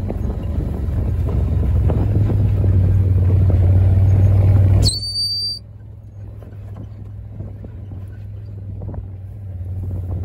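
Farm vehicle engine running steadily as it drives across the paddock, heard from inside the cab. It cuts off abruptly about five seconds in, with a brief high thin tone, and much quieter background noise follows.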